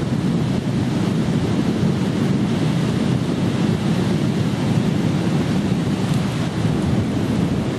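Steady low rumbling noise of wind buffeting the microphone, mixed with the sea's surf.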